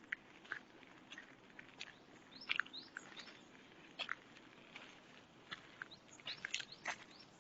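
Small birds chirping and calling in short, high notes, some of them quick sliding whistles, scattered irregularly, with a busier run of calls near the end.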